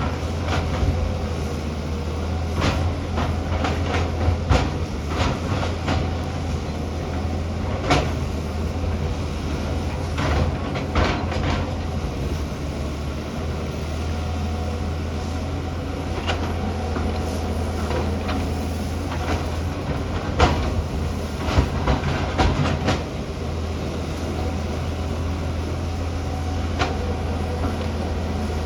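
Excavator's diesel engine running steadily under load, with frequent sharp clanks and knocks from the machine working.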